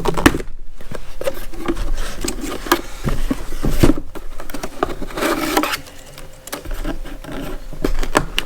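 Cardboard box being handled: irregular rubbing and scraping with many sharp clicks and taps as it is turned over and worked open.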